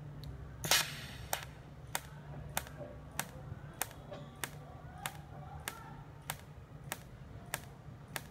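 Automatic weld-ripple generator for a TIG welder clicking at its slow setting: sharp, evenly spaced clicks about one and a half to two times a second, over a steady low machine hum.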